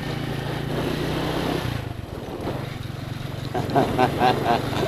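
Small motorcycle engine running steadily under way, with a low hum that dips slightly about two seconds in.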